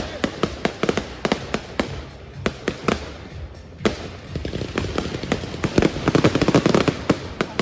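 Fireworks going off: a rapid, uneven run of sharp cracks, several a second, growing denser and louder in the last two seconds.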